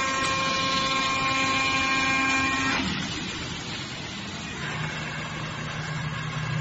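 Starma 1625 CNC oscillating knife cutting machine running while cutting cardboard: a steady mechanical whine that cuts off about three seconds in, leaving quieter machine noise with a low steady hum near the end.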